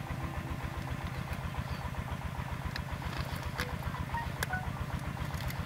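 A small engine idling steadily with a fast, even low putter, with a few faint sharp clicks over it about halfway through.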